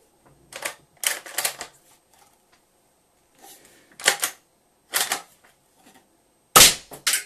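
Bolt of a Tanaka M24 airsoft bolt-action rifle being worked by hand: a series of sharp clicks and clacks, with the loudest, heaviest clack near the end.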